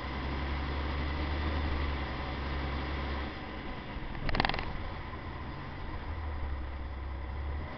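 Trial truck's engine heard from inside the cab, a steady low drone under the noise of the truck running over rough, wet ground; the drone eases off for a couple of seconds in the middle and comes back. About four seconds in there is one short, loud, sharp rattle.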